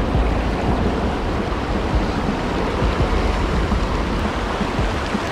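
Fast, shallow freestone river rushing over rocks in pocket water close by: a steady rush with an uneven low rumble underneath.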